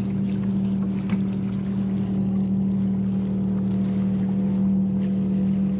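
Bow-mounted electric trolling motor on a fishing kayak running with a steady, even hum.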